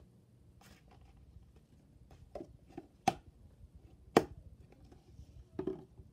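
Plastic container and lid being handled on a table: scattered soft knocks and rubs, with two sharp clicks about a second apart near the middle.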